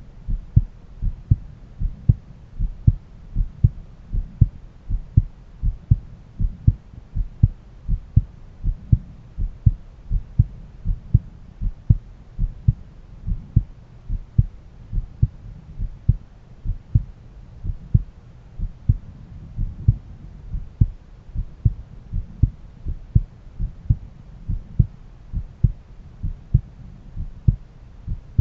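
A man's heart heard through a stethoscope at one of the valve areas: steady, regular lub-dub heart sounds, low in pitch, with a faint hum between the beats.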